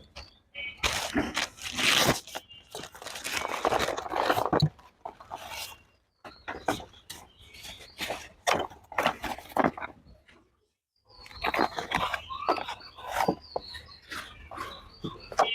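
Packaging being handled and opened by hand: plastic and cardboard crinkling, tearing and an irregular string of clicks and knocks, with a brief pause about ten seconds in.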